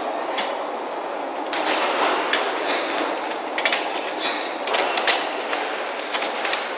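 Wheels of a child's pedal go-kart rolling over a polished stone floor: a steady rolling noise with irregular clicks and knocks.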